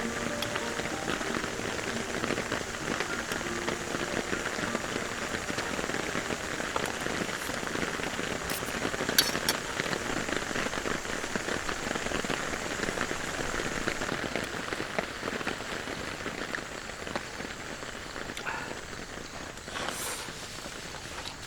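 Steady rain falling, with a few sharp drip-like clicks; it eases slightly in the last few seconds.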